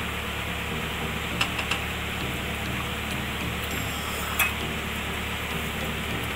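Silicone spatula stirring thick curry gravy in a kadai, knocking lightly against the pan a few times, the loudest knock about four seconds in, over a steady hiss.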